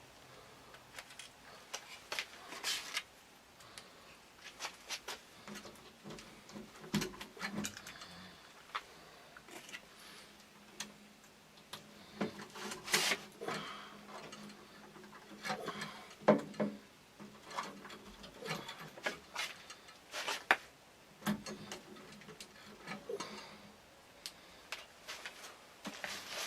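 Scattered clicks and taps of hand work on small pieces of kydex sheet being made ready for pop rivets, with a faint steady hum under the middle stretch.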